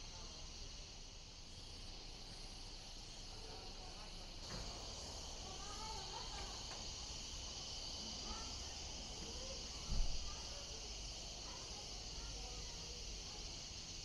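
Steady high-pitched drone of an insect chorus, crickets or cicadas, that grows a little louder about four and a half seconds in. A single short low thump about ten seconds in.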